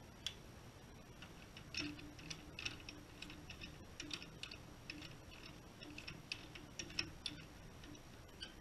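Ratchet wrench clicking in quick runs as it turns the key of a metal lathe chuck, tightening or loosening the jaws.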